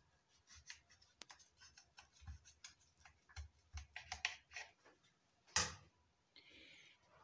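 Knife cutting through a stack of cooked vegetable parathas on a plate: a run of small, faint scratches and clicks, then one sharp knock about five and a half seconds in.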